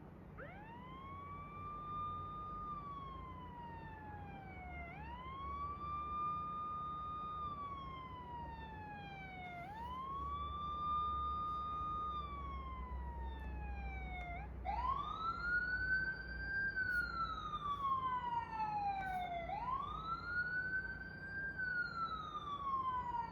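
Played-back siren sound effect: a wailing siren tone that rises quickly, holds, then falls slowly, repeating about every five seconds. The last two wails are higher and louder.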